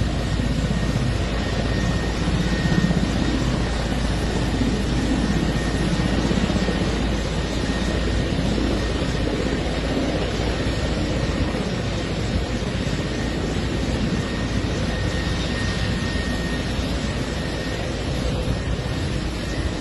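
Military helicopter running on the ground: a steady engine and rotor roar with a faint high whine, unbroken throughout.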